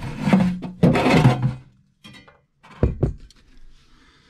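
Campingaz 907 steel gas bottle being pulled out of a cupboard gas locker: a rough scraping rub for about a second and a half, then two dull thunks about three seconds in.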